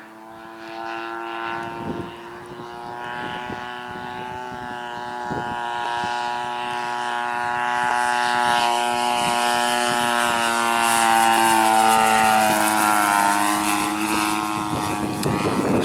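The 30cc gas two-stroke engine and propeller of a radio-controlled RV-8 model plane in flight, a steady buzzing note that grows louder as the plane comes closer. The pitch wavers slightly near the end.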